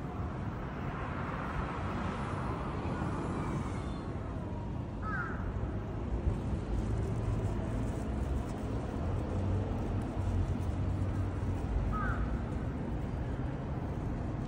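Street ambience: a steady low rumble of city traffic, with two short bird calls, one about a third of the way in and one near the end.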